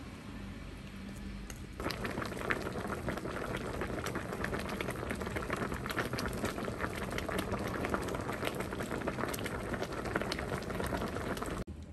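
Pot of spicy pork bone soup boiling: quieter at first, then from about two seconds in a dense, rapid bubbling and popping that cuts off abruptly just before the end.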